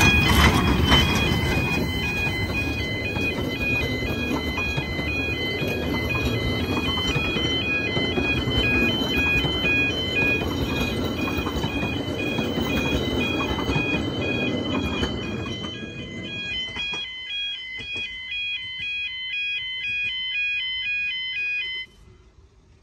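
Level crossing warning alarm sounding a repeating pattern of alternating tones over the rumble and clatter of a passing narrow-gauge steam train. The train's rumble fades about fifteen seconds in, leaving the alarm alone until it cuts off suddenly near the end.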